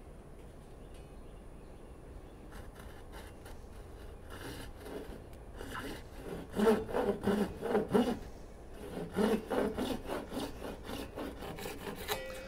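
Thin-bladed pull saw cutting a kerf into a block of plastic: a run of quick, rasping back-and-forth strokes. They start faintly a few seconds in and are loudest near the middle, then pause briefly before a second run of strokes.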